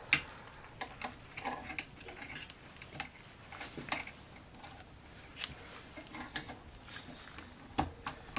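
Irregular light clicks and ticks of a steel car hood latch and its springs being handled and fitted back together, with a sharper click about three seconds in.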